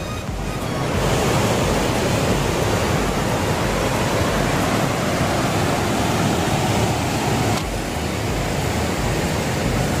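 River water rushing over the rocky cascades of Pykara Falls: a steady, dense rush that grows louder about a second in and eases a little about three-quarters of the way through. Music from the falls' loudspeakers plays underneath.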